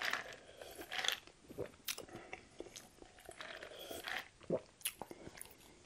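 A person drinking from a paper cup, close-miked: a string of gulps and wet mouth clicks at irregular intervals.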